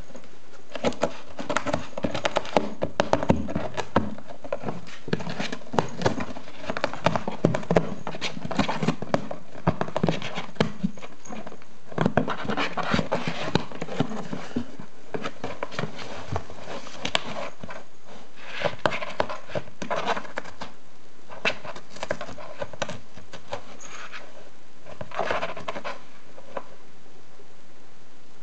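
A ginger cat gnawing and clawing at a cardboard box from inside, tearing its way through the wall: irregular crunching, ripping and scratching of cardboard that stops near the end.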